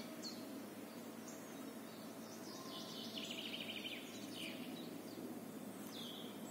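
Quiet woodland ambience with small birds chirping now and then: short, high, downward-sweeping calls, a cluster of them in the middle.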